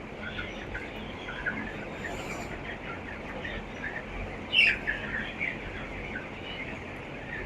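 A large flock of 18-day-old broiler chickens cheeping, a steady mass of short high peeps, with one louder call about four and a half seconds in.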